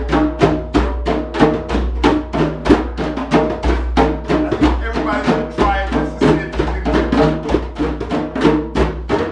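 Several djembes played by hand together in a steady group rhythm, about six strokes a second.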